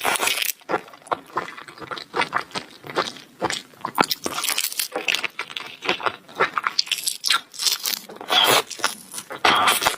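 Close-miked eating of seafood: chewing and biting with crunching, a quick irregular run of sharp clicks and crackles, with two longer noisy bursts about eight and a half and nine and a half seconds in.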